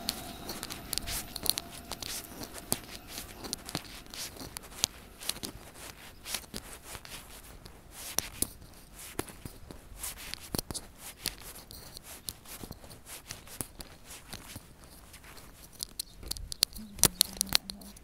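Irregular crackling and rustling on a handheld phone's microphone while walking, with a cluster of louder clicks near the end. The sound of a passing train fades away in the first second or two.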